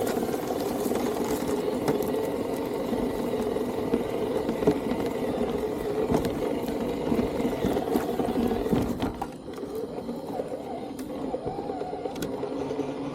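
Remote-control Toyota truck's small motor and drivetrain whirring steadily. It drops away about nine seconds in to a fainter hum.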